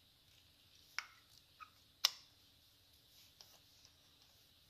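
A few scattered light clicks and taps from hand tools and small parts being handled during motorcycle ignition work, the loudest about two seconds in with a short ring after it.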